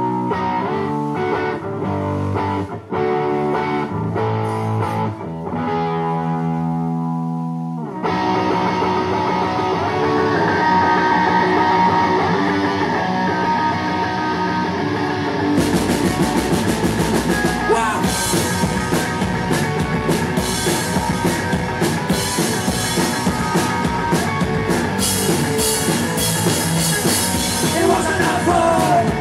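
Live rock band playing an instrumental passage: guitar chords alone at first, the rest of the band coming in about eight seconds in, and the drums playing hard from about halfway through.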